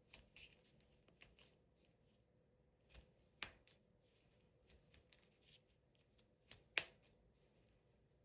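Finger knuckles cracking under traction: two sharp pops a few seconds apart, the second louder, as the finger joints are pulled lengthwise, with faint rustling of hands between.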